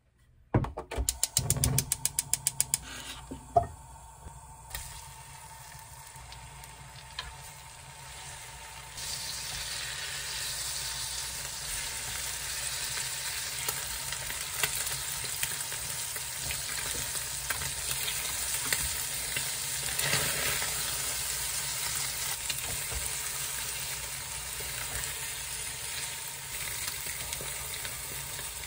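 Ham-wrapped, egg-soaked bread frying in a pan, a steady sizzle that swells about nine seconds in, with small taps and scrapes as the pieces are turned with chopsticks and a spatula. Near the start, a quick run of loud clicks.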